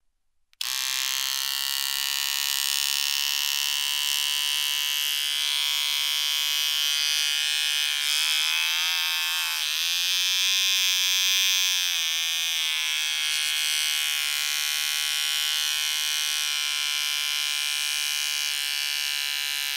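Electric beard trimmer switched on about half a second in, running with a steady buzz. Its pitch wavers and dips for a few seconds around the middle.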